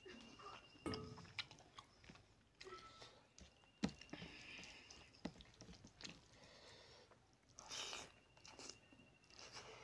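Close-up chewing and wet mouth sounds of a person eating a mouthful of rice and fish curry, with short lip smacks and clicks; the sharpest click comes just before four seconds in.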